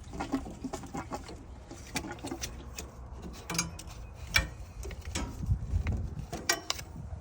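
Irregular sharp metal clicks and knocks of a hand tool working the service valve on a tankless water heater's cold flush port, closing it off.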